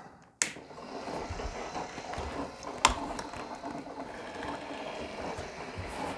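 Elektra LBO rotating warning beacons starting up about half a second in, their small electric motors and reflector gears whirring steadily, turning slowly on a rather low supply voltage. A sharp click about three seconds in.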